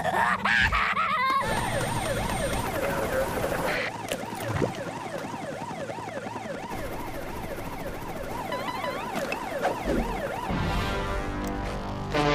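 Cartoon sound effect: a wavering, whistle-like tone sliding up and down about twice a second. Music with held notes comes in near the end.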